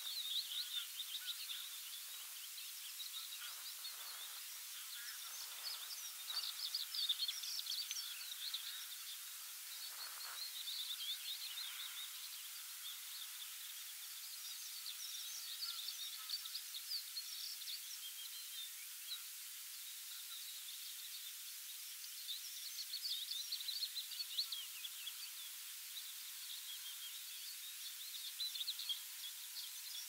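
Songbirds singing in quick, twittering phrases that come in repeated bouts over a steady hiss, with a few lower, distant calls in the first ten seconds.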